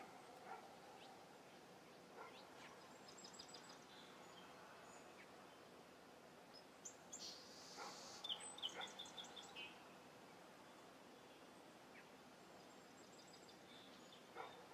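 Birds chirping: short runs of quick high chirps about three seconds in, a louder run around seven to nine seconds, and faint chirps near the end, over a low steady hiss.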